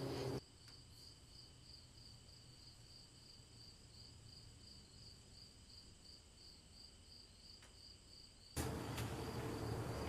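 Faint insect chirping: a high pulse repeating about three times a second over near silence. A louder low background hiss stops half a second in and comes back near the end.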